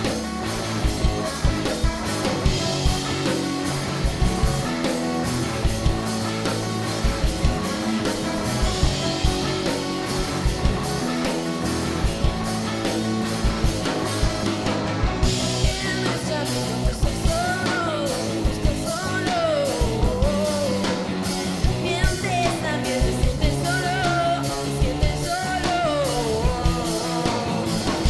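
Rock music: a drum kit keeps a steady beat under guitars, and a sliding lead melody comes in about halfway through.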